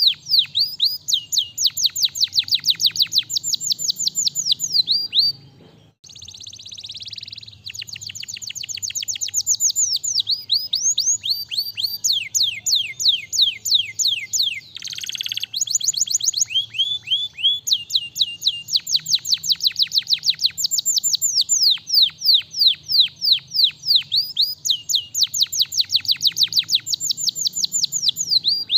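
Domestic canary singing: long rapid trills of fast downward-sweeping high notes, phrase after phrase, with a harsh buzzy passage about six seconds in and a short rasp around fifteen seconds.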